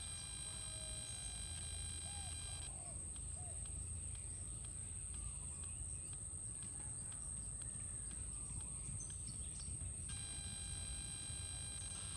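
Quiet outdoor ambience: a low rumble with a few faint bird chirps in the first few seconds and a steady high whine throughout.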